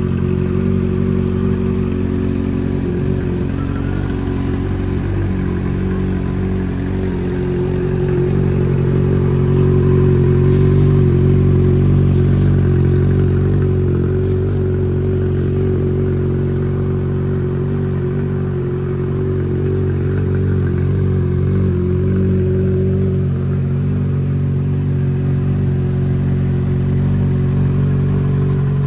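Yamaha XJ6 Diversion's 600 cc inline-four engine idling steadily through an aftermarket end-can exhaust. A few brief faint hisses come through near the middle.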